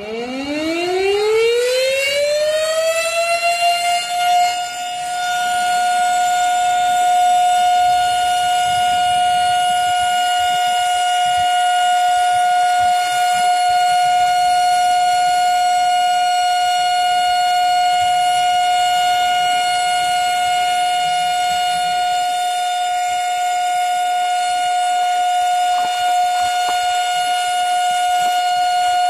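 Fire station siren winding up, its pitch rising over about four seconds, then holding one steady tone. It is the commemorative signal sounded to honour the Warsaw Uprising.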